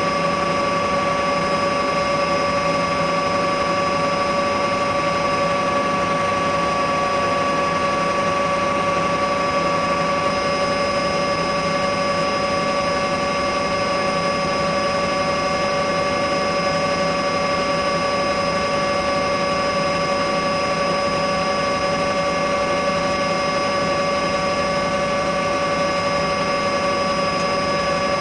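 Bell OH-58 helicopter running steadily: a constant turbine whine of several high tones over an even rush of engine and rotor noise, with no change in pitch or level.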